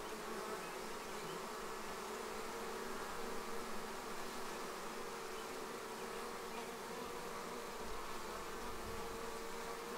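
A honeybee swarm buzzing: a steady hum of many wings with a faint held pitch, unchanging throughout.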